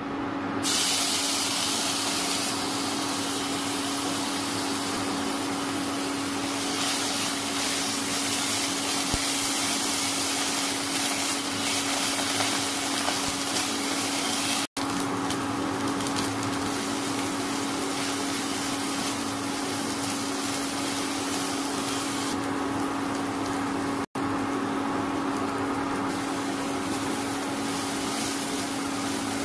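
Onion and spice paste frying in hot oil in a nonstick kadai, a steady sizzling hiss over the constant low hum of an induction cooktop. The sound breaks off for an instant twice, at edit cuts.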